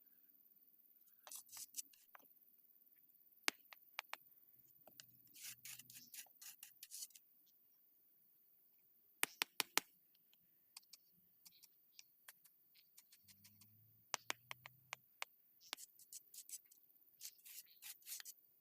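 Faint, scattered sharp clicks and light scrapes from concrete paving blocks being handled and set in place, including a quick run of four clicks about halfway through.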